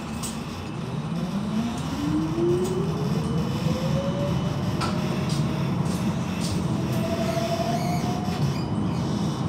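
Electric tram accelerating from a stop, heard from inside. The motor whine rises steadily in pitch and levels off near the end, over the low rumble of the wheels on the rails.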